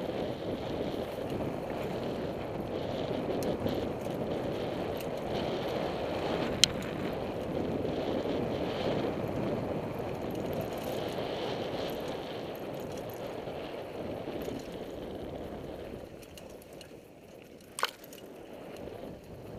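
Mountain bike rolling along a dirt trail, heard from a camera on the bike or rider: a steady rush of wind and tyre noise. A sharp click comes about a third of the way in and another near the end, and the rush eases off over the last few seconds.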